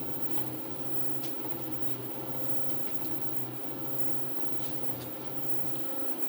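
CNC knee mill running an engraving program with a spring-loaded carbide engraving tool: a steady machine hum with a low tone that switches on and off in even segments about every three-quarters of a second as the tool moves.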